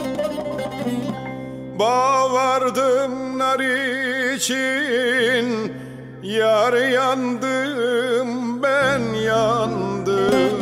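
Turkish folk song recording: a singing voice with wide vibrato over plucked strings and a low steady drone. The voice enters about two seconds in and continues in phrases.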